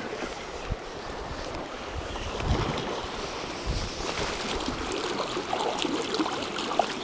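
Sea water washing and lapping against rocks, with gusts of wind buffeting the microphone in a few low thumps.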